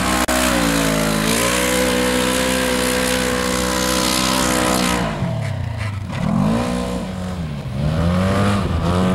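Side-by-side UTV engine revving hard, held at high revs under a rushing hiss for about five seconds. The revs then drop and rise and fall twice more.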